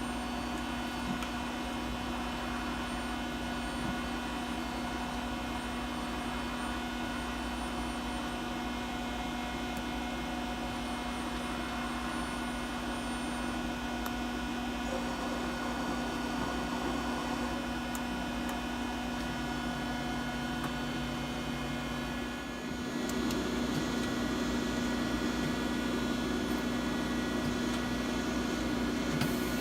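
1993 Mighty Comet CNC vertical machining center powered up and running: a steady hum made of several fixed tones with a faint whine above. About three-quarters of the way through it dips briefly, then comes back a little louder.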